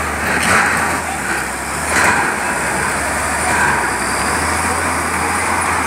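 Heavy truck engines running with a steady low rumble, over a constant rushing noise.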